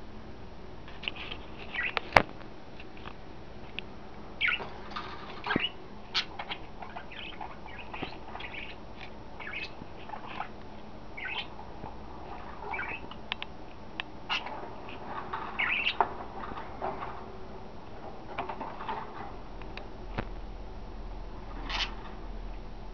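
Pet budgies chirping and chattering in short, scattered calls, with occasional sharp clicks around the cage; the loudest click comes about two seconds in.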